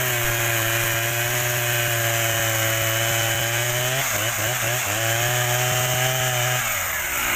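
Husqvarna chainsaw running at high revs, cutting into wood. The revs dip briefly about four seconds in, come back up, then fall away near the end.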